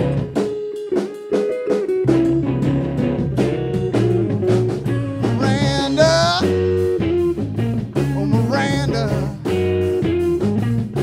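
Band playing an instrumental break: guitar lines over bass and drums, with a bent, sliding note about six seconds in.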